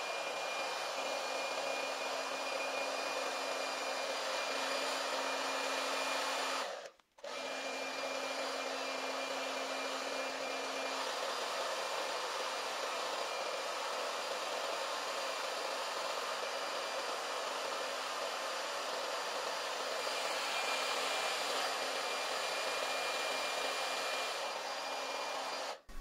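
Hair dryer running steadily, blowing hot air onto glue to soften it, with a thin high whine over the rush of air. The sound drops out for a moment about seven seconds in and stops just before the end.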